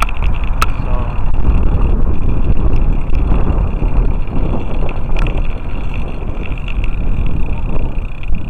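Wind buffeting the microphone of a camera mounted on a moving bike: a loud, steady low rumble with road noise and a couple of light clicks.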